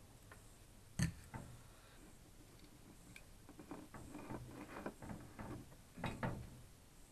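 Handling noise on a workbench: a sharp knock about a second in, then a run of light clicks and rattles as the open plastic case and circuit board of a two-way radio are picked up and handled, with two louder knocks around six seconds in.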